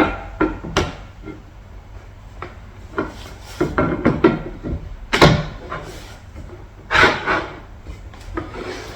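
Wooden beechwood chair parts knocking and sliding against each other as the seat and footrest plates are handled and fitted into the frame: a scatter of sharp wooden knocks and clatters, the loudest about five and seven seconds in.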